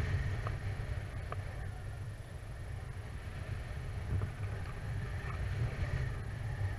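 Wind rushing over the camera microphone during paraglider flight: an uneven, gusting low rumble.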